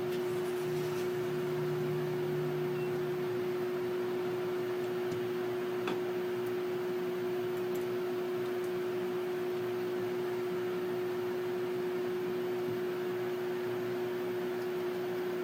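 Steady hum at one constant pitch, like a fan or appliance, with a few faint light clicks of small metal parts being handled.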